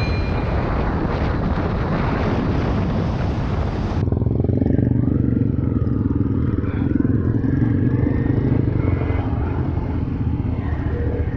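Yamaha Y15ZR 150cc single-cylinder motorcycle being ridden at speed, its engine buried in heavy wind rush on a helmet camera. About four seconds in the sound changes abruptly to the same engine running at low speed, clearer and with far less wind noise.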